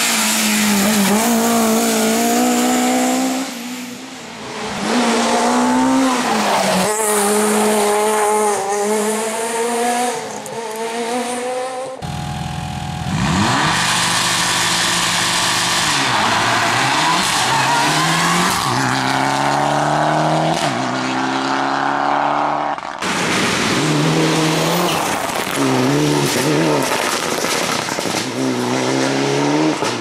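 Rally car engines at full throttle, one car after another: each engine revs up hard, drops on gear changes and lifts, and climbs again. The cars are a classic boxy rally saloon, then a Mitsubishi Lancer Evolution, with the sound changing abruptly from one car to the next about a third and two thirds of the way in.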